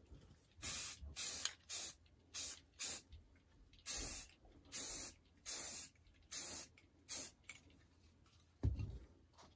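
Aerosol can of craft spray paint hissing in about ten short bursts, each well under a second, as it paints model railroad track. A low thump follows near the end.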